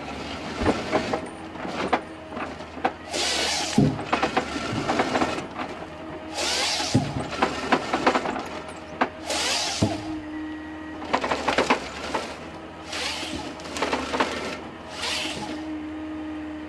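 Tree harvester head at work: the machine's engine and hydraulics run steadily while its saw makes about five short cutting bursts a few seconds apart, with many sharp cracks and knocks of wood between them as stems are fed and delimbed.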